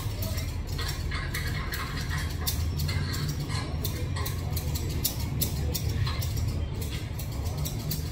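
Barber's scissors snipping hair in a run of quick, irregular metallic clicks, over a steady low hum.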